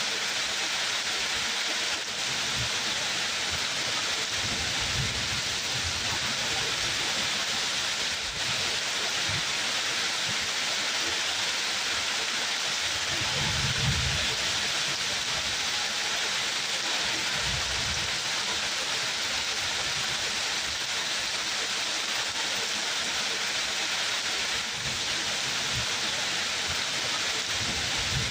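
Steady rain falling, an even hiss, with a few brief low rumbles, the strongest about halfway through.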